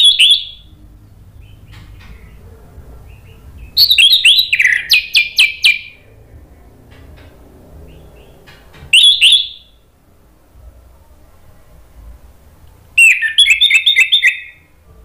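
Orange-headed thrush singing: four loud phrases of clear whistled notes. Short ones come at the start and about nine seconds in, and longer ones with quick runs of repeated notes come about four and thirteen seconds in.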